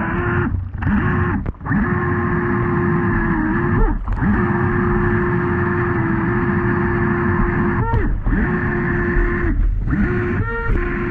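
RC jet boat's brushless electric motor and jet drive whining at a steady pitch, with several brief dropouts and short upward swoops in pitch about eight and ten and a half seconds in, over a low rushing noise.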